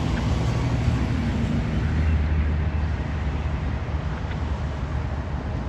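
Amtrak Heartland Flyer passenger train going by, its diesel locomotive giving a steady low drone over the rumble of the train, the drone dropping to a deeper pitch about two seconds in.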